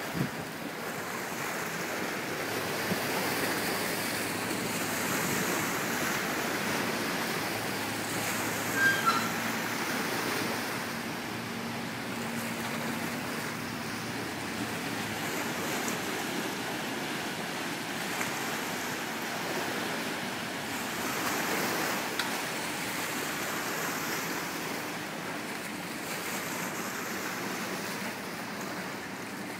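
Steady rushing and churning of river water stirred up by a Rhine passenger ship manoeuvring alongside its landing pontoon, with wind buffeting the microphone. A faint low hum comes in from about eight to thirteen seconds, and a couple of short high chirps come about nine seconds in.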